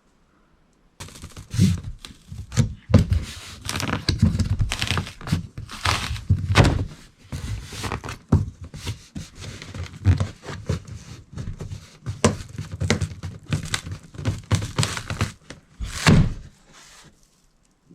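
A large cardboard box being opened and handled: a run of irregular thumps and knocks of cardboard with crinkling and tearing, beginning about a second in, with one loud thump near the end.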